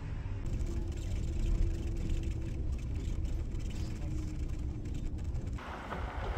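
Car driving, heard from inside: a steady low road and engine rumble. Near the end it gives way abruptly to a steady hiss.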